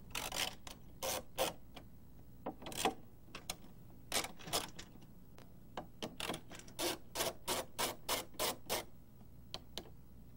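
Screwdriver working the mounting screws of a sliding roof panel: a string of short scraping clicks, irregular at first, then about three a second for a few seconds before two faint last ones.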